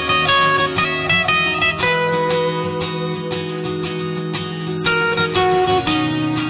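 Background music: a plucked string instrument, like an acoustic guitar, playing a quick run of notes over steady sustained low notes.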